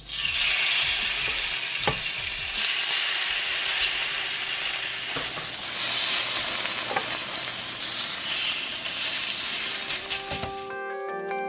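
Oiled chicken breasts sizzling loudly on a hot ridged grill pan, the sizzle starting sharply as the first breast is laid on, with a few clicks of metal tongs. Music comes in near the end as the sizzle stops.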